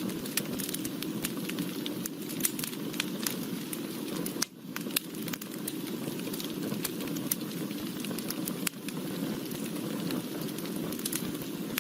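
Wood fire burning: a steady low rush of flames with frequent sharp crackles and pops.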